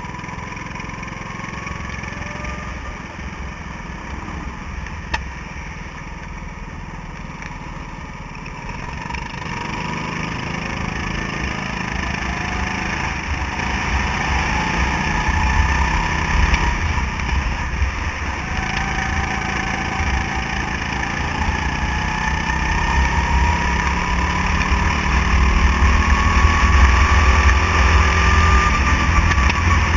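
Go-kart engine heard from on board, its pitch rising and falling with the throttle through the corners over a low rumble that grows louder from about ten seconds in. A single short click about five seconds in.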